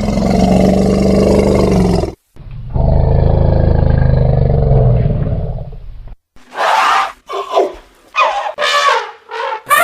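Elephant vocalizing: two long, loud, low roars, then a run of about five short, higher-pitched calls near the end.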